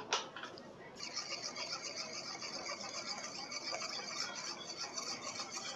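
A spoon stirring salt into vinegar water in a ceramic bowl, scraping and clicking rapidly against the bowl from about a second in.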